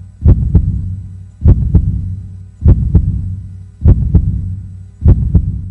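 Heartbeat sound effect: a double thump, lub-dub, repeating about every 1.2 seconds, five times, over a low steady drone.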